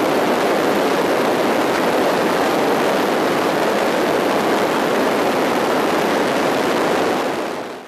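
Steady rush of wind and propeller-aircraft engine noise through an open jump door in flight, fading out near the end.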